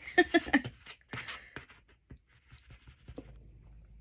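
A brief wordless vocal sound at the start, then soft scraping and a click as a small craft tool rubs glued paper down into the gutter of a notebook.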